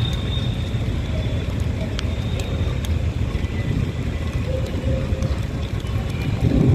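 Steady low rumbling wind, with faint thin high tones over it.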